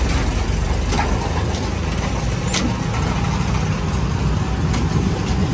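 Mahindra Yuvo Tech+ 265 tractor's diesel engine running steadily, with a few faint ticks.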